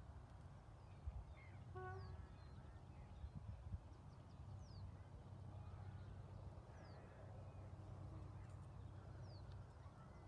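Faint rural ambience: wild birds calling, with scattered short high chirps and a brief call about two seconds in, over a low steady rumble.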